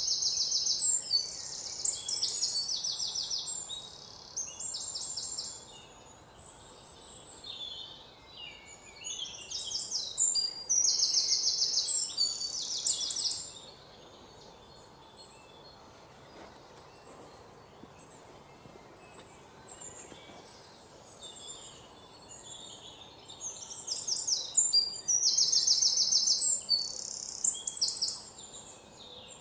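A songbird singing high, rapid trilled phrases in three bouts a few seconds long, with fainter calls and quiet natural background in the spells between.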